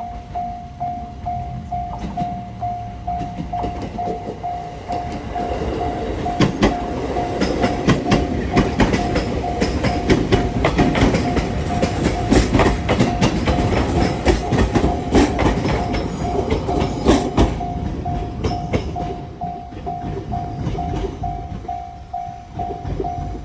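Japanese level crossing warning bell ringing steadily about twice a second, while a train passes through the crossing from about five seconds in until about eighteen seconds in, its wheels clacking over the rail joints.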